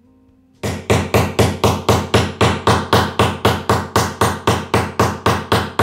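Hammer with a steel head and wooden handle striking a fitting into a flat-pack furniture panel. It is a loud, steady run of quick, even blows, about four a second, that starts about half a second in.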